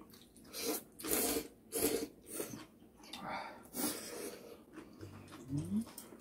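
Ramen noodles being slurped: a run of loud, hissing slurps about half a second apart, thinning out after about four seconds.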